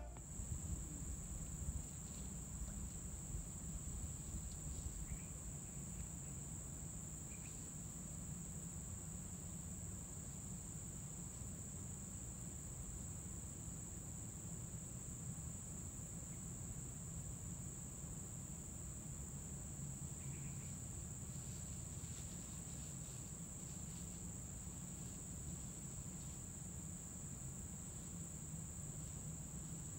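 Steady, high-pitched insect chorus, one unbroken drone, with a few faint short chirps now and then.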